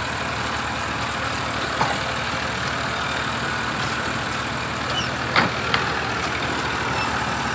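Massey Ferguson 1035 DI tractor's diesel engine running steadily under load as the tractor works to drive out of deep mud. A few brief sharp sounds cut through about two seconds in and twice near five and a half seconds, one of them a short rising squeak.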